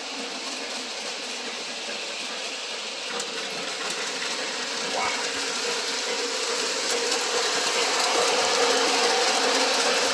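Lionel Lionmaster Southern Pacific cab-forward model locomotive and its K-Line ore cars running fast on three-rail O-gauge track: a steady mechanical clatter of wheels and drive that grows louder as the train comes closer.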